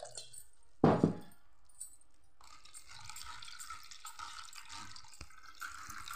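A sharp knock about a second in, then a steady pour of thin liquid from a steel vessel through a mesh strainer into a steel bowl, as blended muskmelon for sharbat is strained.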